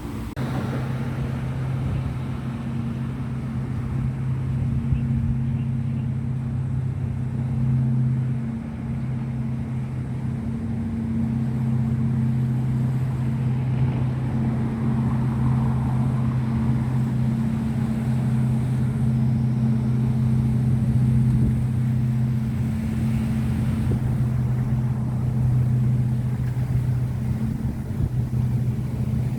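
An engine running at a steady speed: a low, even drone with a hum and its overtone, dipping briefly about eight seconds in.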